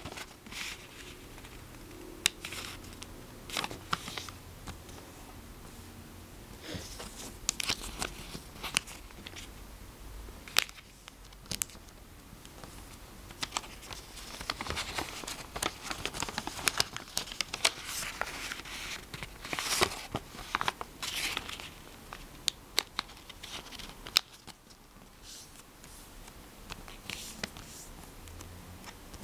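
A square of origami paper being folded and creased by hand: irregular rustling and crinkling with sharp ticks, busiest about halfway through.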